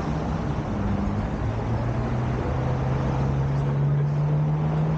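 A motor vehicle's engine running, its low hum rising slowly in pitch over a steady background of outdoor noise.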